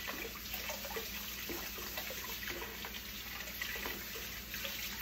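Kitchen tap running into the sink while a spatula is washed by hand, with a few light knocks and scrapes of the utensil.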